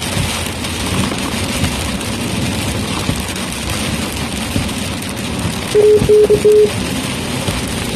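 Steady road noise inside a moving vehicle's cabin. About six seconds in, a quick run of three short electronic beeps on one mid pitch stands out as the loudest sound.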